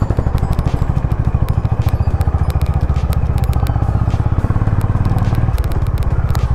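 Honda H'ness CB350's single-cylinder engine running at low speed with a steady, even pulse, its note changing about five and a half seconds in. Sharp clicks and rattles from gravel under the tyres and the bike run over it.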